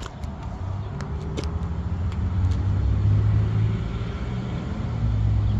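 Low, steady rumble of a motor vehicle that swells and fades, with a couple of light clicks about a second in.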